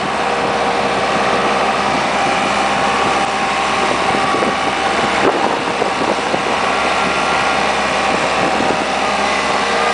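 Engine of a loader machine working a hay bale unroller attachment, running steadily, with one short knock about halfway through.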